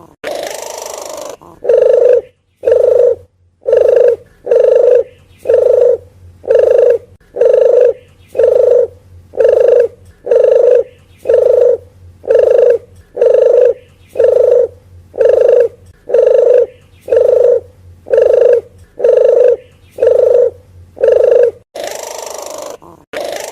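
Deruk geni (puter geni) dove calling, as a bird-trapping lure: a long run of short coos, repeated about once a second. A longer, harsher call opens the run and comes again near the end.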